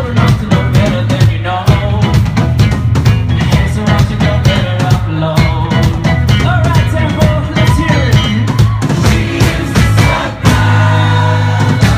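Live indie rock band playing: pounding drum kit, electric guitar, bass and a lead singer. Near the end the drums drop out and a sustained chord rings on.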